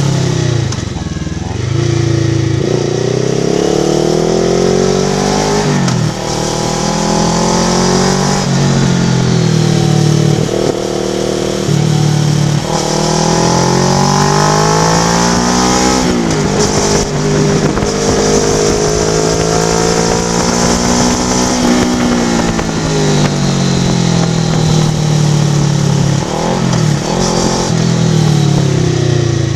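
Kawasaki Vulcan S parallel-twin engine running through an Ixil aftermarket exhaust. It pulls up in pitch and drops sharply again and again as it accelerates through the gears.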